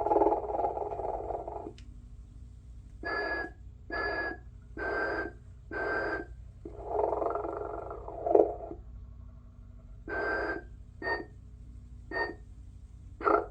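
Telco Motionette animated sleeping Santa playing its snore-and-whistle sound: a long snore, then four short whistled breaths about a second apart, the cycle running twice. A steady low hum runs underneath.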